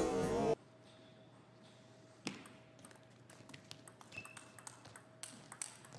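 Table tennis rally: the ball clicks sharply off the paddles and the table, one hit about two seconds in, then a quick irregular run of hits. Music plays briefly at the start and cuts off abruptly about half a second in.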